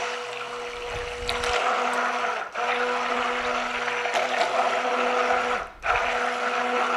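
Electric hand mixer running on low while fully submerged in oils and lye water, blending the soap batter toward trace. A steady motor hum with a churning, liquid noise on top, briefly cut off about two and a half seconds in and again near six seconds.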